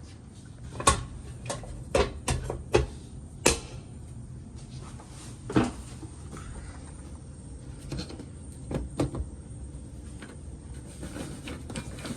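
A series of sharp clicks and clunks, the handling of the heat pump air handler's sheet-metal cabinet parts, bunched in the first few seconds and a few more later, over a steady low hum.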